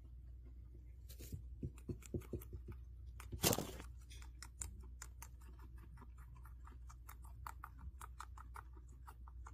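Guinea pig chewing cherry tomato: a quick run of small, wet chewing clicks, with one brief louder noise about three and a half seconds in.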